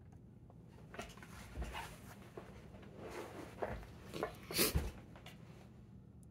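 Handling noise: a run of soft rustles and scrapes as hands and metal picking tools shift on a lock held in a small vise, loudest near the end.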